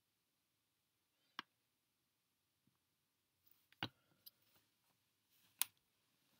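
Near silence broken by a handful of sharp computer mouse clicks: one about a second in, then three louder ones between about four and six seconds in.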